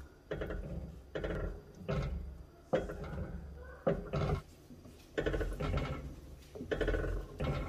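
Wooden spoon stirring thick mole sauce in an enamelled Dutch oven: repeated squelching strokes with the spoon scraping against the pot, about seven in a row.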